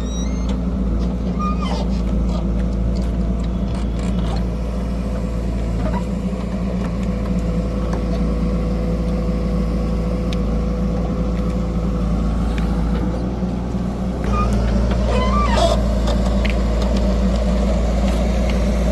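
Heavy diesel machine engine running steadily, its note stepping up a little louder about three-quarters of the way in.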